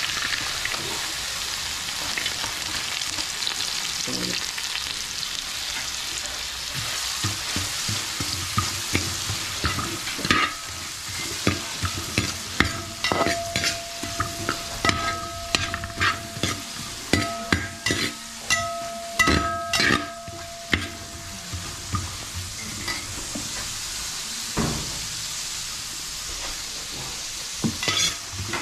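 Diced carrots sizzling in hot ghee in a wide aluminium pan, with a slotted metal spatula scraping and knocking against the pan as they are stirred. The strokes come quick and loud through the middle stretch over a steady sizzle.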